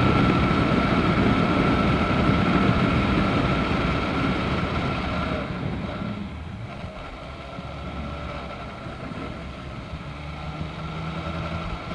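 Daelim Daystar 125cc motorcycle riding, its engine running under a strong rush of wind noise. About five seconds in, the wind rush falls away as the bike slows, leaving the engine running more quietly at lower speed.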